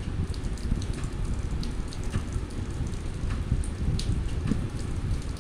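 Sliced onion, carrot and green beans sizzling in oil in a steel kadai, a steady crackling hiss with scattered small ticks, while a metal spatula stirs and scrapes them around the pan.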